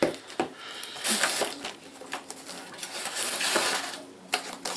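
Scissors snipping through a plastic strapping band on a cardboard box, with a sharp snip at the start. The cut straps then rustle and scrape against the cardboard as they are pulled off, with a few small clicks and knocks.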